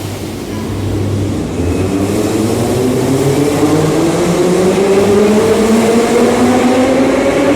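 Metro train accelerating, its traction motors giving a whine of several tones that rises steadily in pitch from about a second and a half in.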